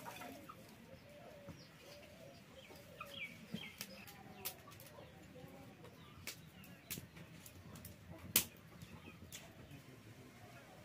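Dry twigs snapping and crackling in a wood-fired clay stove, scattered sharp cracks with the loudest about eight seconds in, over faint clucking of hens.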